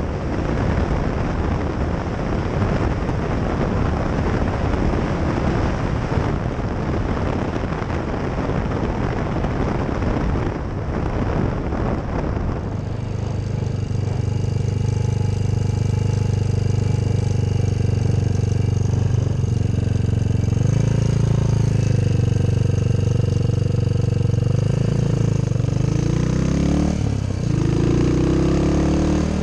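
Motorcycle engine running under way with a heavy rush of wind for about the first twelve seconds; then the wind falls away and the engine's steady note comes through clearly, rising in pitch twice toward the end as it accelerates.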